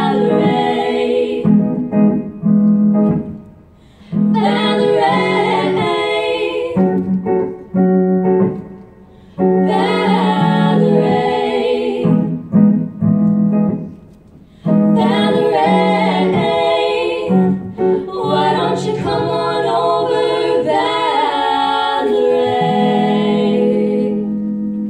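Three female voices singing a song in harmony into microphones, in phrases broken by a few short pauses.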